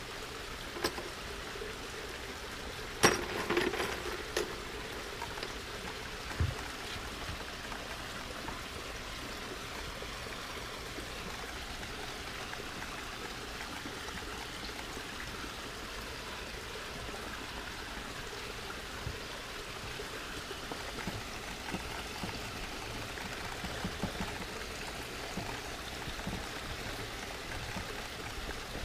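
Steady trickle of running water from a garden water feature, with a few sharp knocks about three to four seconds in.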